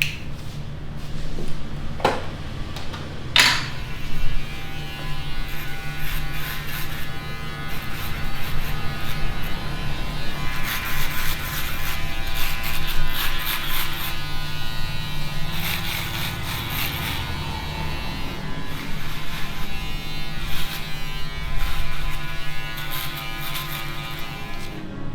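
Electric hair clippers buzzing steadily while cutting hair. There are two sharp clicks in the first few seconds.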